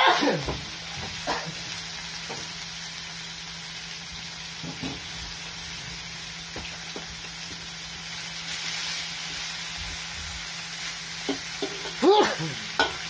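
Water spinach and bean sprouts sizzling in a hot wok. A metal spatula scrapes and clanks against the wok at the start and again near the end as the greens are tossed.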